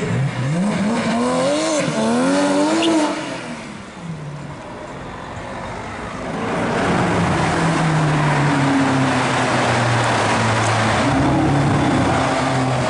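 Porsche 997 GT3's flat-six accelerating hard, its revs rising and dropping several times in quick succession through the first few seconds. After a quieter stretch, a sports car's engine runs loud and steady, echoing in a road tunnel.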